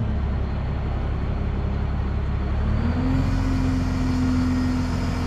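Crane's engine and hydraulics running steadily during a lift, with the engine note dipping at first and then rising again about three seconds in as the boom is worked, a hiss coming in with it.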